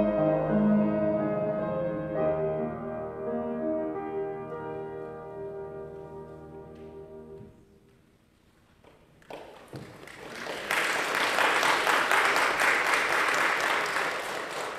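The last held chords of a solo song's accompaniment die away over about seven seconds. After a short pause, the congregation applauds for about five seconds.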